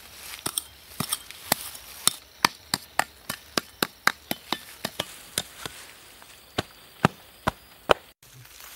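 Small metal hand trowel chopping and stabbing into hard, dry soil: a quick series of sharp strikes, about three a second, thinning to a few slower strikes near the end before breaking off abruptly.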